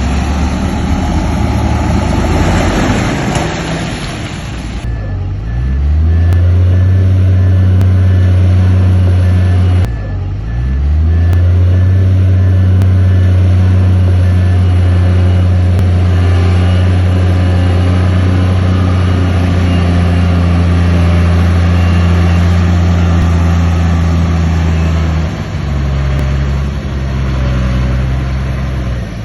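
Heavy diesel engine of a construction machine: a rough, noisy rumble at first, then revving up about five seconds in, dipping briefly near ten seconds and revving up again, and holding steady at high revs until it eases down near the end.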